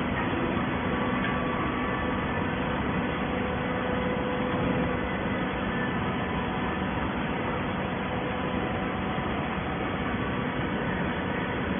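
Hydraulic paper baler running: a steady machine hum and hiss with a few faint held tones, even throughout.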